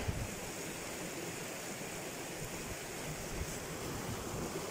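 Mountain river flowing past shore ice and a snag, a steady rush of water.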